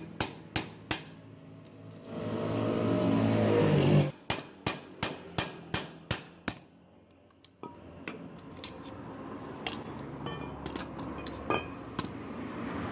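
Hammer striking a blunted concrete nail against the rivet-type fasteners of a washing-machine motor casing: metal-on-metal knocks, three near the start and a run of about eight at roughly three a second in the middle, with lighter clicks later. A humming sound rising in pitch comes between the two groups of knocks.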